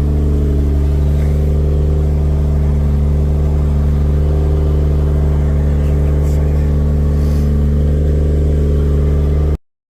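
Turbocharged Lexus IS200's 2.0-litre straight-six engine running at a steady idle. The sound cuts off abruptly near the end.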